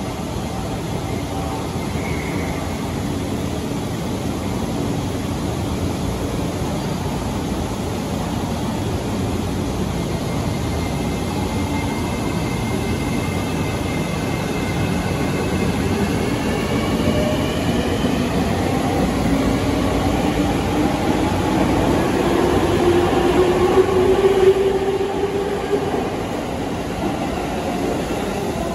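E653 series electric train pulling out of the platform and accelerating: the whine of its traction motors climbs steadily in pitch, with the rolling noise of the passing carriages growing louder until a peak near the end.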